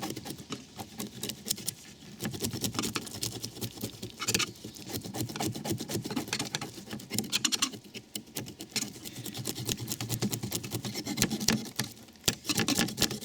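The back of a knife scraping the scales off a perch, in rapid strokes with short pauses between runs.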